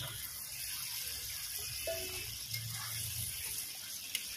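Spiced gravy bubbling at the boil in a steel kadai as fried climbing fish are added, a steady hiss, with a sharp click near the end.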